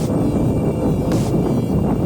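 Background music with a steady beat, a hissing cymbal-like hit about every second and a bit.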